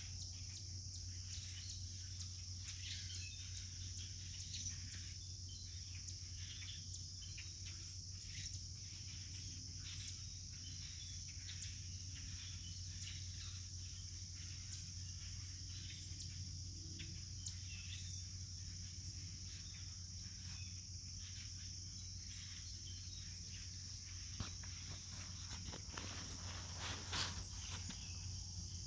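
A flock of common grackles giving short, scattered calls over a steady, high insect chorus and a low hum, with a cluster of louder calls near the end.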